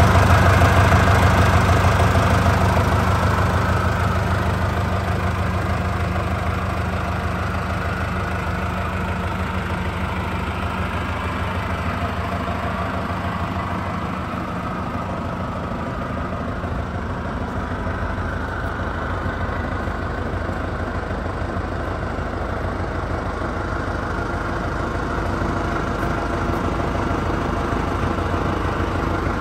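John Deere 6520 tractor's six-cylinder diesel engine idling steadily, louder for the first few seconds and then settling a little quieter.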